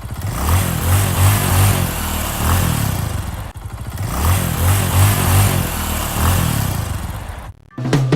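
Drag-racing motorcycle engine revved up and down repeatedly, in two stretches with a short break about three and a half seconds in.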